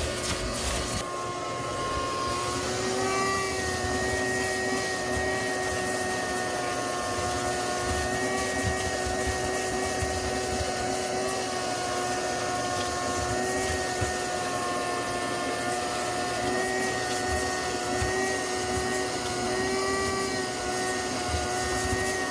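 Small shop vacuum running with a steady motor whine and rushing air, the pitch wavering slightly now and then.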